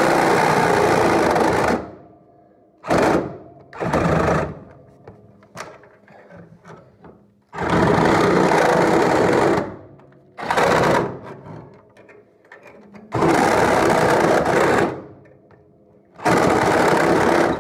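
A power tool trimming metal in seven on-off bursts, the longest about two seconds, with short pauses between.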